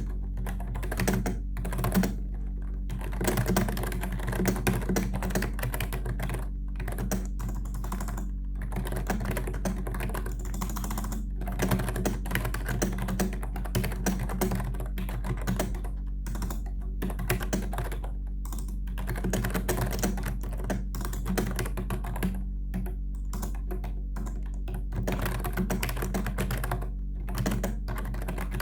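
Logitech K120 membrane keyboard typed on quickly and continuously. Its keys clack in a dense run with short breaks now and then.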